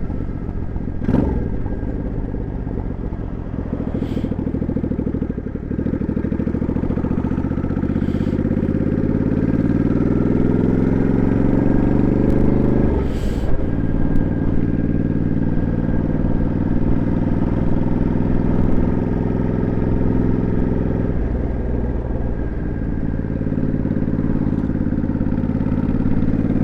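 Motorcycle engine under way: the pitch climbs for several seconds as it accelerates, drops sharply with a gear change about halfway through, then runs steady at cruising speed.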